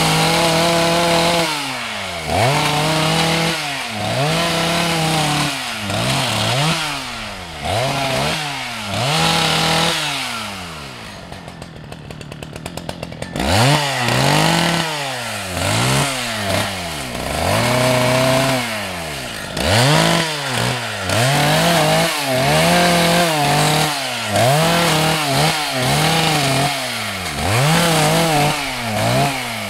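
Husqvarna 181 SE two-stroke chainsaw revving up and falling back in quick bursts every second or two as it cuts small pine branches and stems. About eleven seconds in it drops to a ticking idle for a couple of seconds, then revs again.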